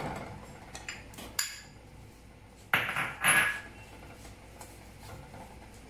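A ladle knocking and scraping against an aluminium frying pan as grated coconut is stirred into melted jaggery syrup. A sharp knock comes at the start, then a couple of light clicks, and a louder clattering scrape about three seconds in.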